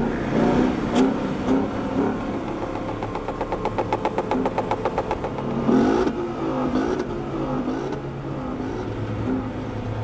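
Ford Mustang GT's V8 revving on the start line with launch control engaged, a fast, even burble through the middle and a few quick rises and falls in pitch about six seconds in.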